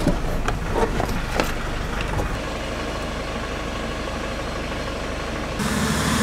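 A vehicle engine idling steadily, with a few sharp knocks and clicks in the first second and a half. Near the end the sound changes suddenly to a louder hiss.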